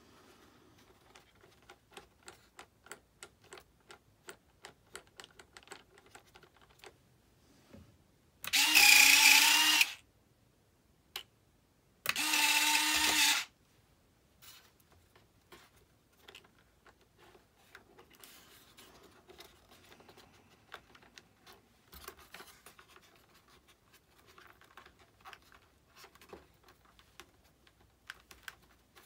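Electric retract landing-gear units of an RC jet whirring twice, each run about a second and a half long and a couple of seconds apart, as the gear is cycled on test after failing to go up and down properly. Small clicks and taps come before and after the runs.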